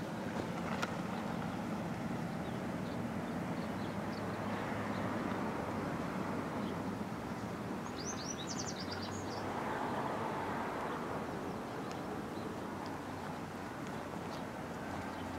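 Steady outdoor background noise with a low hum, a single click just under a second in, and a short burst of bird chirps about eight seconds in.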